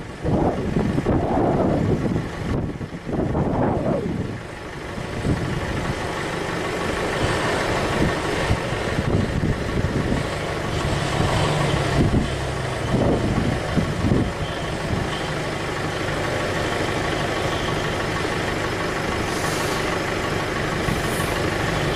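Heavy truck's diesel engine running steadily under a slow haul, with a rushing noise in the first few seconds.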